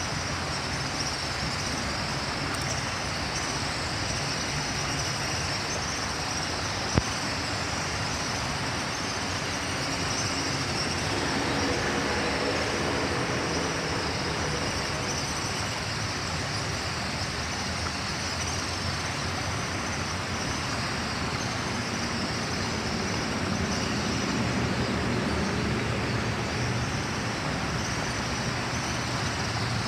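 Steady rushing of river water churning over rocks, mixed with traffic noise from the road bridge overhead. A single sharp click about seven seconds in.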